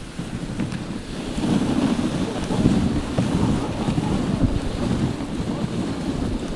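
Wind buffeting the microphone of a GoPro riding on a moving dog sled, with the rumble of the sled running over the snow trail. It grows louder about a second and a half in.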